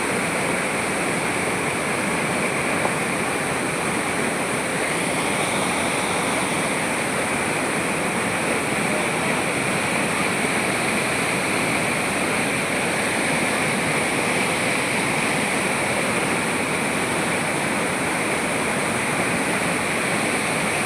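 Large stepped waterfall: a steady rush of water tumbling down rock steps.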